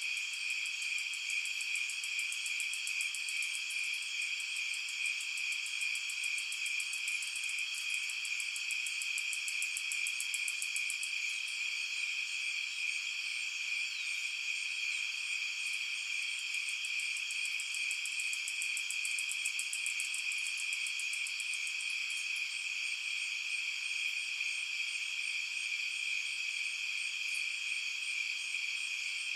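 Summer night chorus of crickets and other insects trilling steadily, several high-pitched songs layered on one another. A very high, rapid pulsing call joins in for the first third and again midway.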